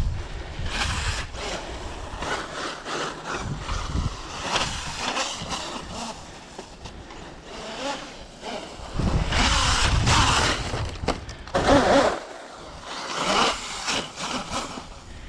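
Electric RC basher truck driving across a dirt field, its motor and tyres rising and falling with bursts of throttle and loudest about nine to twelve seconds in.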